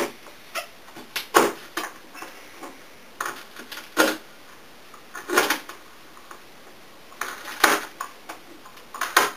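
Knife chopping peeled thistle roots on a plastic cutting board: about a dozen crunchy cuts at an uneven pace, each ending in a sharp knock on the board.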